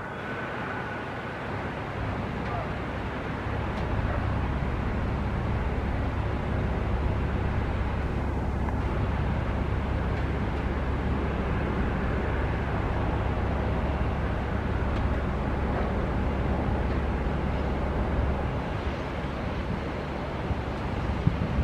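Jet airliner engines running, a steady low rumble with hiss that builds slightly over the first few seconds and then holds even.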